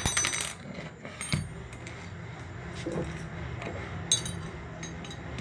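Metal tools clinking and rattling against a submersible motor's bolts and casing while a bolt is tightened: a bright ringing clatter at the start, a few faint knocks, and another sharp clink about four seconds in.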